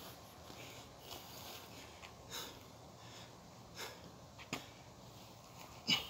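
A man's short, forceful breaths while lifting a weighted rucksack: four sharp exhales, the loudest near the end.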